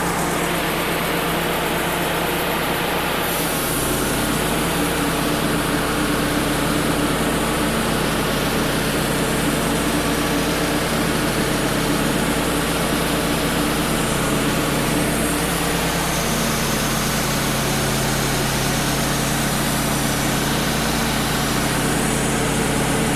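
Wood-Mizer LT35 HD portable sawmill's engine running steadily.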